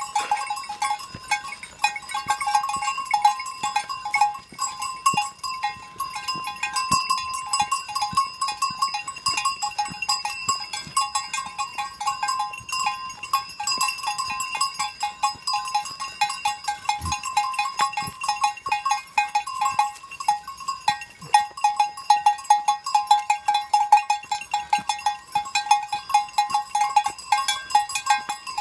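Many bells worn by a herd of walking goats, clanking irregularly at a few fixed pitches as the animals move. The clanking grows denser in the last few seconds.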